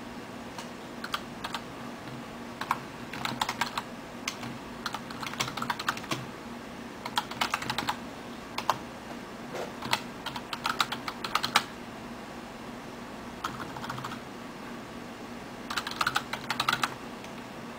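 Typing on a computer keyboard: short bursts of rapid keystroke clicks with pauses between them, over a steady low hum.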